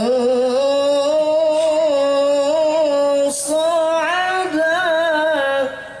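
A man reciting the Quran in a melodic, ornamented style, unaccompanied, drawing out long notes that waver and turn in pitch. He takes a short break for breath about three seconds in, and the phrase ends just before the close.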